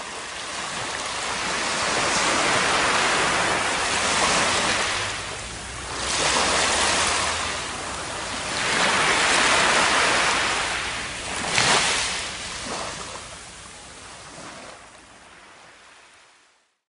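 Surf washing up on a sandy beach, a rushing hiss that swells and falls back several times as waves run in and recede, then fades out near the end.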